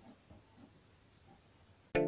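Faint handling noises from a roll of packaging tape and a cardboard box. Then, near the end, background music with plucked strings starts suddenly and is the loudest sound.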